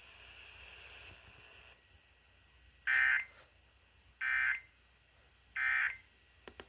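Emergency Alert System end-of-message data bursts: three short, raspy digital SAME tone bursts, each about half a second long and evenly spaced, marking the close of the monthly test.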